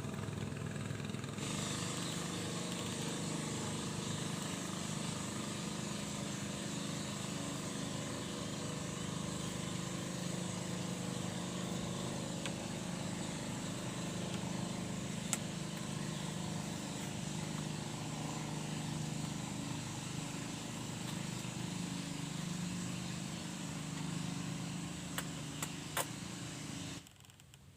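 An engine running steadily with a low, even hum over outdoor noise, a few sharp clicks near the end, then it cuts off suddenly.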